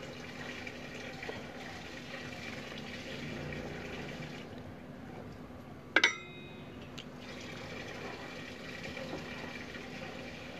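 A single sharp metallic clink from hand tools on a scooter's rear brake caliper bolts, ringing briefly, about six seconds in, over a steady background hiss.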